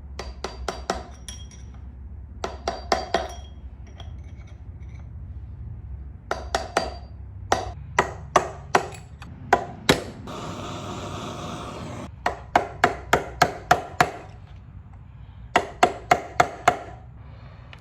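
Hammer tapping a metal speedometer drive gear onto a Turbo 400 transmission's output shaft, in short runs of quick metallic taps with some single spaced blows in the middle. A brief rushing noise comes between the runs about two-thirds of the way in.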